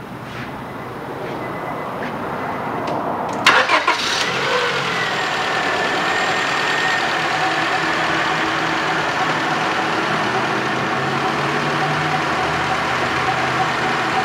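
Car engine starting with a few sharp clicks about three and a half seconds in, then running steadily at idle.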